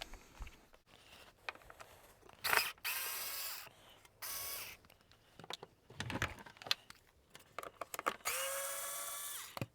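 Power screwdriver running twice, each run a second or so, to undo the two screws holding a vacuum cleaner's hood; small clicks and handling noises in between.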